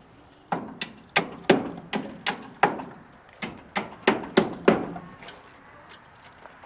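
Hammer striking nails into wooden trim board, about a dozen sharp blows at roughly three a second in two runs with a short pause between them.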